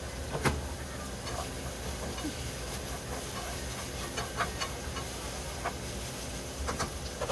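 Vegetables sizzling steadily as they sauté in a nonstick frying pan, with a spatula knocking and scraping against the pan several times as they are stirred; the sharpest knock comes about half a second in.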